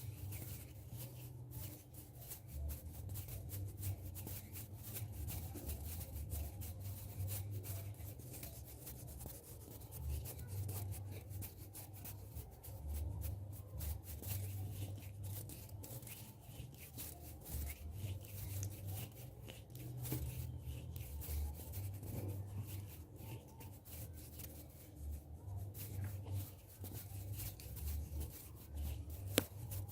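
Hands rubbing and moving close to the microphone, giving soft irregular swishing and rustling with low rumbling pulses, and one sharp click near the end.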